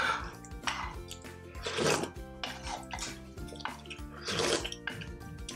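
Background music under close-miked eating sounds: soup sipped from a bowl and a spoon, in several short slurps.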